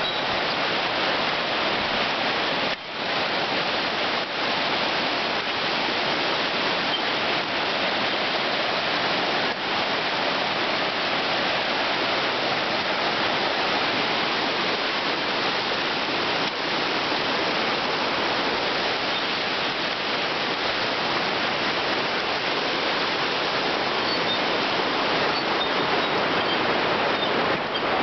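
Steady rushing of a swift-running mountain creek, its fast white water making an even, continuous noise.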